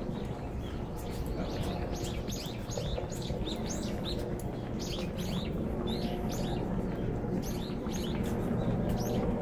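Many small birds chirping in quick, overlapping short calls that start about a second in, over a steady low background rumble.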